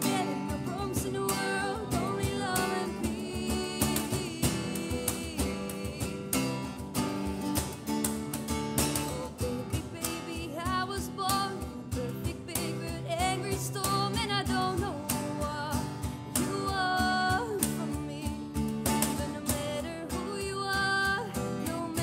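Acoustic trio performing a song: a female voice singing over a strummed acoustic guitar, an acoustic bass guitar and a steady cajón beat.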